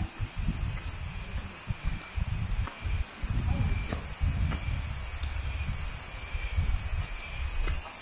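Forest insect chorus, a high hiss that swells and fades a little more than once a second, over a low rumble on the microphone.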